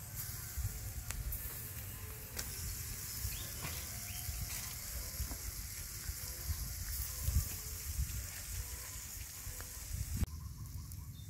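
Pork ribs sizzling on a wire grill rack over charcoal embers: a steady crackling hiss with scattered small pops, which fades out about a second before the end.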